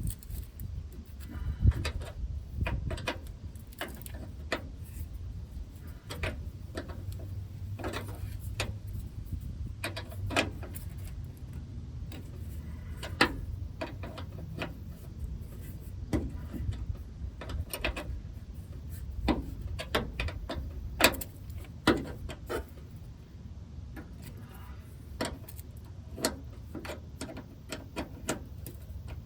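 Scattered metallic clicks and clinks of a hand wrench working a brake line nut loose a little at a time, over a low steady hum.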